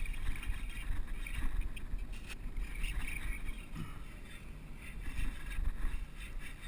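Low, uneven rumble with rustling of body movement and handling against a body-worn camera's microphone while a spinning rod is cast and worked.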